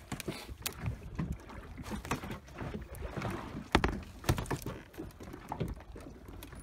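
Irregular knocks and bumps of handling on a small open fishing boat, over a low rumble of wind and water, with the sharpest knocks about four seconds in.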